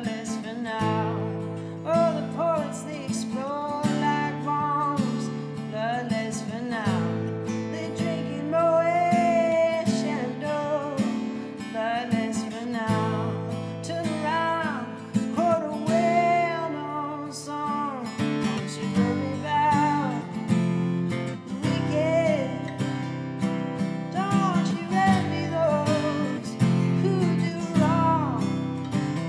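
Live acoustic music: strummed acoustic guitar chords under a sliding, wavering melody line.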